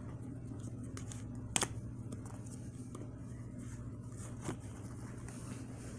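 Quiet room tone with a steady low hum, broken by a few faint clicks and one sharper click about one and a half seconds in.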